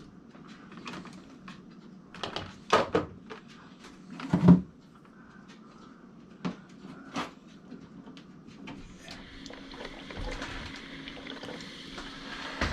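Household knocks and clatter, the loudest a single thump about four and a half seconds in, then a steady rushing hiss from about nine seconds.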